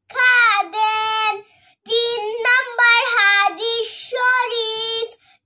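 A young girl singing in a high voice, in two phrases with a short break about a second and a half in.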